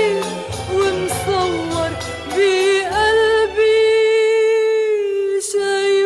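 Background music from an Arabic song: a voice holds long, drawn-out notes over a low accompaniment, with no clear words.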